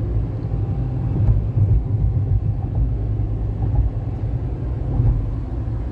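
Steady low rumble of a moving car heard from inside the cabin: engine and tyre noise while driving along the road.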